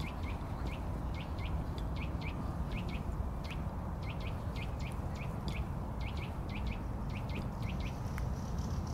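Songbirds chirping: short, high, downward-sliding notes, several a second, with uneven spacing, over a steady low rumble.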